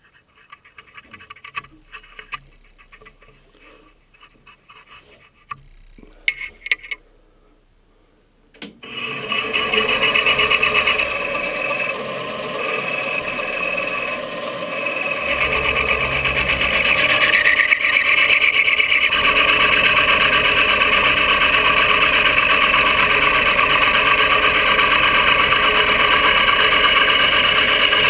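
Light clicks and taps of hands at the machine. Then, about nine seconds in, a benchtop milling machine starts with a sudden rise and runs steadily, its end mill cutting the trigger pocket of a polymer 80% AR-15 lower. The load and tone shift a little around the middle as the cutter works.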